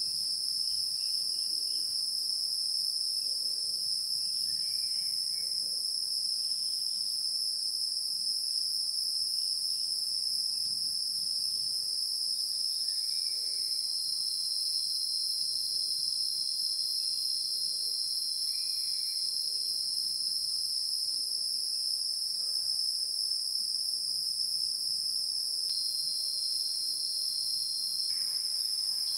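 A steady, high-pitched insect drone that holds without a break, with a few faint short chirps now and then.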